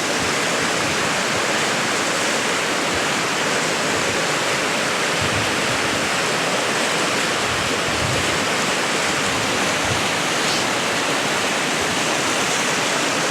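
Waterfall and river running steadily: an even, unbroken rush of falling and flowing water.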